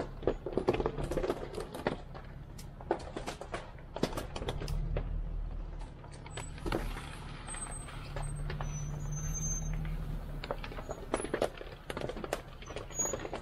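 Off-road vehicle's engine running low and steady while driving on a rough trail, with many sharp clicks and knocks over it.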